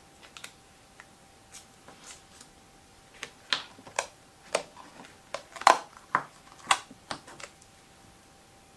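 Handling of washi tape, card stock and tape rolls on a cutting mat: a few soft clicks at first, then a quick run of sharp taps and crackles through the middle, the loudest a little past halfway.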